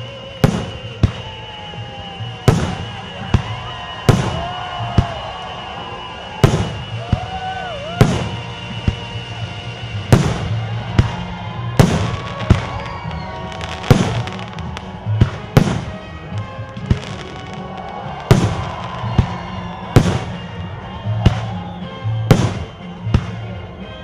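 Fireworks salute: aerial shells bursting one after another, a sharp bang about every second, each trailing a short echo.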